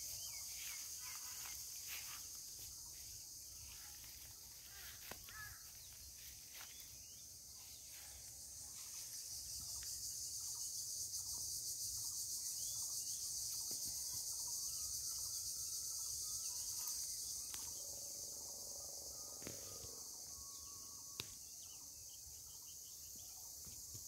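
Steady high-pitched insect chorus, crickets, that swells for several seconds in the middle and eases off again, with a faint low rumble and a sharp click near the end.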